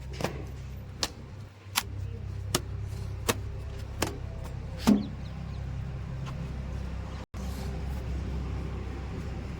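Heavy diesel machinery engine running steadily, with sharp clicks about every three-quarters of a second for the first five seconds. The sound cuts out for an instant about seven seconds in.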